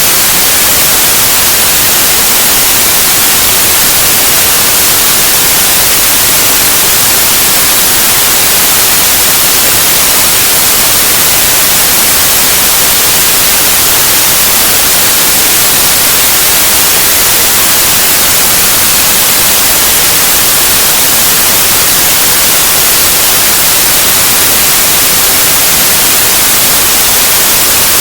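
Loud, steady white noise: an even hiss with nothing else in it.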